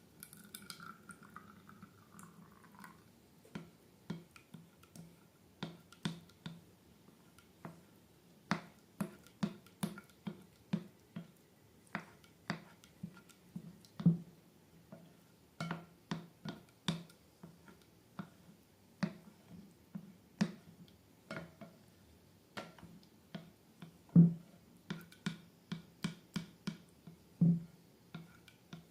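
Slime being squeezed and worked by hand, making irregular sticky clicks and small pops, several a second. There is a faint rubbery squeak in the first couple of seconds.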